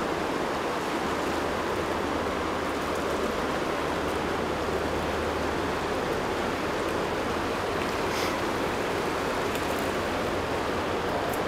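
Steady rush of flowing stream water, with a few faint clicks in the second half.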